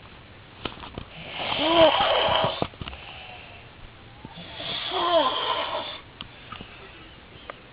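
A man snoring loudly: two long snores about three and a half seconds apart, each with a pitch that rises and then falls.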